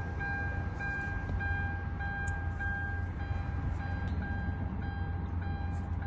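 A car's electronic warning chime beeping steadily, about one and a half beeps a second, at one unchanging pitch, over a low steady hum.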